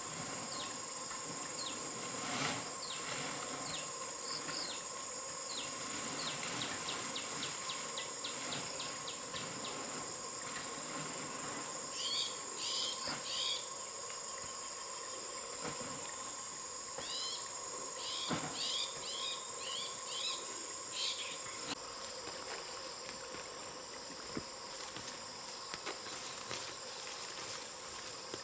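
Insects droning in a steady, high-pitched chorus, with short runs of rapid chirps from birds or other calling animals a few times.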